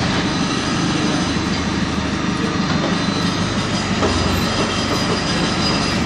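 JCB 4CX backhoe loader digging up asphalt: its diesel engine working under hydraulic load, with a steady, dense mechanical clatter of the backhoe arm and bucket tearing at broken asphalt and rubble.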